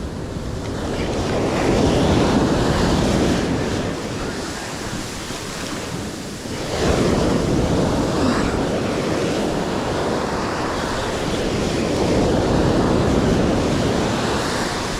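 Ocean surf surging and washing along the shore, with wind buffeting the microphone; the wash swells up about two seconds in and again about seven seconds in.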